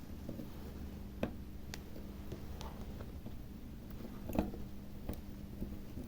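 Light, scattered clicks and taps of small tools and parts being handled inside an opened tablet, the two clearest a little after a second in and about four seconds in, over a faint steady hum.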